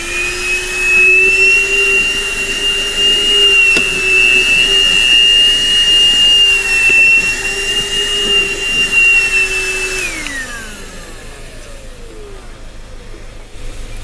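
ThisWorx 106W 12-volt handheld car vacuum running at full speed with a steady high whine as its nozzle is worked over the car's floor carpet. About ten seconds in it is switched off and the motor winds down, its pitch falling away over a few seconds.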